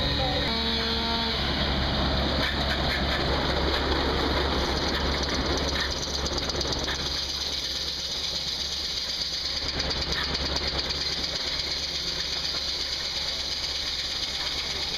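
Old-style sawmill at work: a steady engine drone with the saw cutting through a log. The cutting noise eases off about six seconds in while the engine keeps running.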